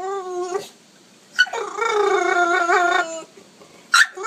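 A dog howling in drawn-out calls, each opening with a sharp high yip that drops into a held, wavering tone. A short call comes at the start, a long one runs from about one and a half to three seconds in, and another begins near the end.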